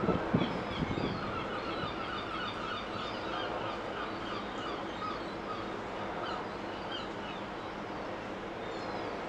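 A few dull knocks, then a flock of birds calling in a rapid run of short, repeated notes that fades out after about six seconds, over a steady background rumble.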